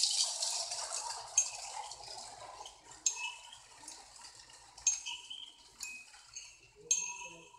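A metal teaspoon stirring in a china teacup, clinking against the cup five times at uneven intervals, each clink ringing briefly.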